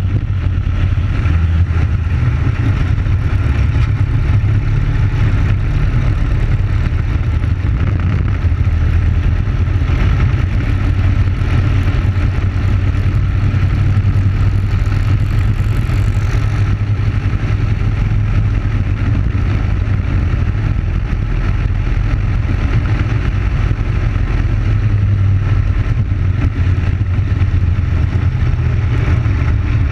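Briggs & Stratton Animal single-cylinder four-stroke kart engine running hard at racing speed, heard onboard, with a second kart running close ahead. The engine note holds steady with only small rises and dips in speed.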